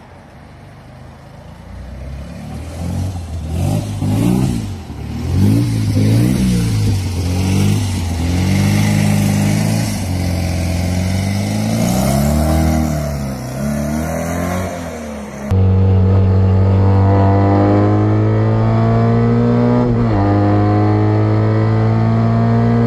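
Fiat Abarth 500's small two-cylinder engine revving up and down several times as the car pulls away. After a cut about two-thirds through, it runs louder and steady at high revs under load, with a brief dip in pitch near the end.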